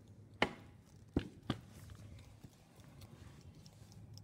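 Three short, sharp knocks: one about half a second in, then two close together about a second later, over a faint low hum.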